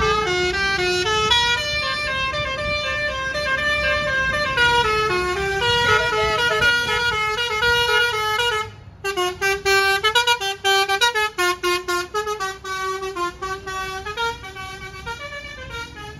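Basuri V3 telolet multi-tone bus horn playing a melody of held notes that step up and down in pitch; after a brief break about halfway through, it plays a quicker run of short, choppy notes.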